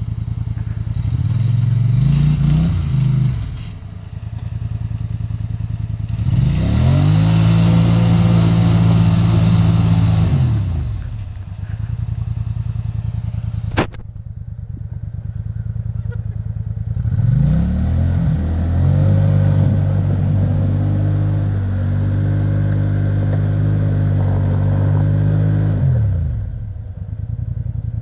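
Polaris ATV engine stuck in deep mud, revved hard to drive it out: a short rev near the start, then two long revs held for several seconds each, dropping back to idle between them. A single sharp knock about halfway through.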